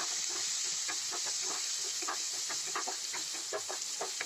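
Chopped onion sizzling in hot oil in a pan: a steady frying hiss with frequent small crackles.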